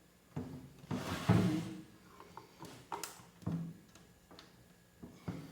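Snare drum with a newly fitted, still loosely tensioned head, knocked and tapped several times while its tension rods are brought up finger-tight. The loudest tap, about a second in, rings briefly.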